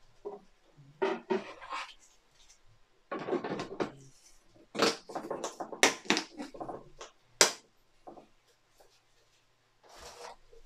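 Gloved hands handling a plastic wash container on its base: rustling and a string of hard plastic knocks and clacks, the sharpest about seven seconds in.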